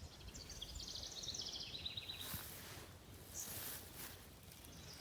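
A small songbird's fast, high trill in the first two seconds. Then two short bursts of rustling about halfway through, from large zucchini leaves being handled.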